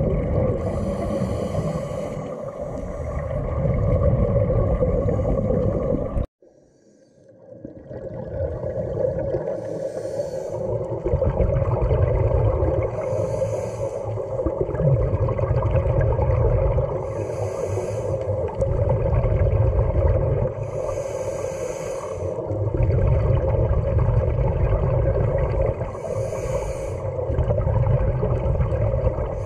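Underwater audio on a scuba dive: scuba regulator exhaust bubbles, a short hissing, bubbling burst every few seconds with each exhalation, over a steady hum and low rumble of water against the camera housing. The sound drops out for about a second, six seconds in.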